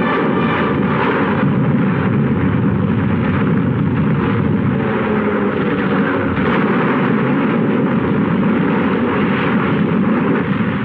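A continuous din of battle sound effects on an old film soundtrack: explosions and gunfire over naval combat footage.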